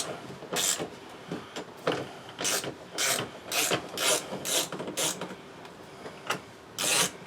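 Hand ratchet clicking in short bursts, about two strokes a second, as a bolt by the door handle is backed out. There is a short pause near the end.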